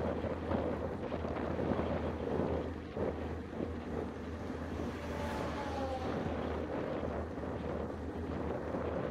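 Wind rushing over a bicycle handlebar camera's microphone at riding speed, a steady noise. About five seconds in, an oncoming truck passes, heard as a faint tone dropping in pitch.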